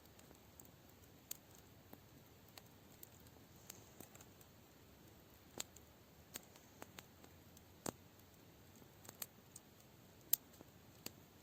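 Wood campfire crackling: sparse, irregular sharp pops over a faint hiss, with the loudest pop near the end.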